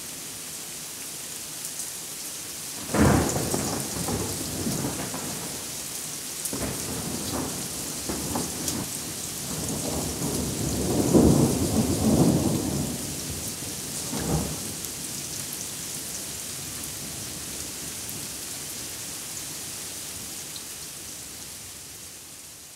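Steady heavy rain with thunder: a sharp thunderclap about three seconds in, a long rolling rumble around the middle that is the loudest part, and a last crack shortly after. The rain fades out at the end.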